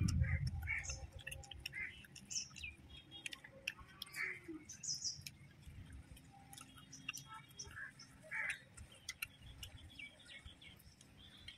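Small birds chirping now and then, with faint clicks throughout and a low rumble in the first second.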